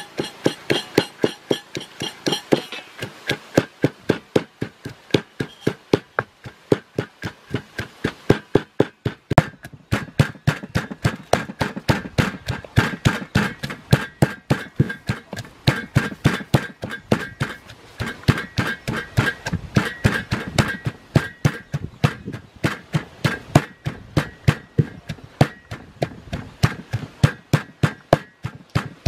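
Wooden pestle pounding green chillies and herbs in a mortar, a steady run of thuds about three to four a second as they are crushed into a paste.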